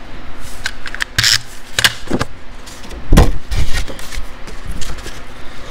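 Sheets of cardstock being handled on a desk and craft mat: a few short papery rustles and slides, then a heavier thump a little over three seconds in as the card is set down.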